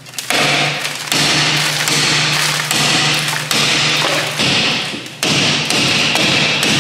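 Hammer blows on a Volvo 240's front brake rotor, struck about once a second, each with a short metallic ring. The rotor is badly rusted and stuck on the hub, and the blows are meant to knock it loose.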